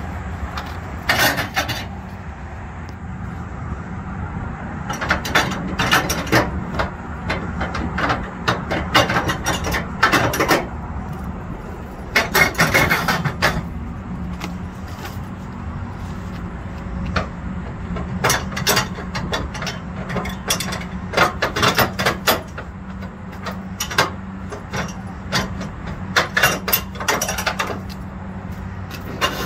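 Flatbed trailer strap winch and webbing being worked by hand: repeated bursts of rapid ratcheting clicks and rattles over a steady low hum.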